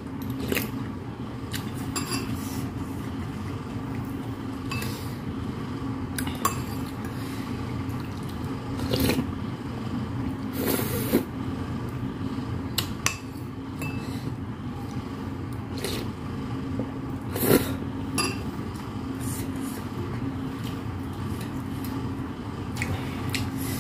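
Metal spoon clinking and scraping against a ceramic soup bowl now and then, about a dozen separate clinks, over a steady low hum.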